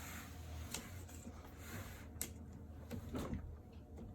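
A few faint clicks and knocks from a small part being taken off a stairlift seat, over a steady low hum.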